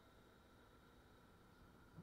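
Near silence: only a faint low rumble with a thin steady hum underneath.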